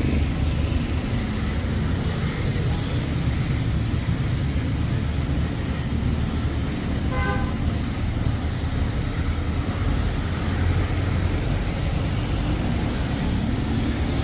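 Steady low rumble of vehicle engines and road traffic, with one short horn toot about seven seconds in.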